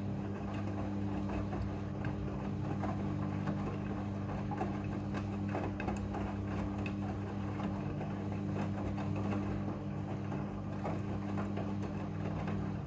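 Front-loading washing machine running a wash: a steady drum-motor hum with many small irregular clicks and knocks from the tumbling load.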